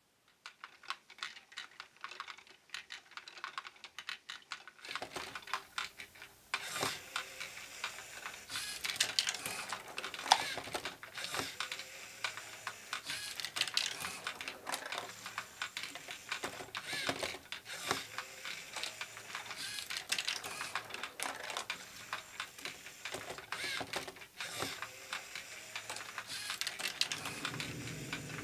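LEGO Great Ball Contraption module running: small plastic LEGO balls clicking and clattering through the plastic tracks and lifts. The clicks are sparse at first, then come thick and fast from about five seconds in, over a steady mechanical hum.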